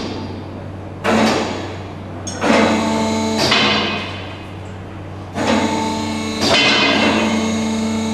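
Steel meat hooks and chains clanking against the overhead hanging rails about five times, each knock ringing on with a metallic tone, over a steady low hum.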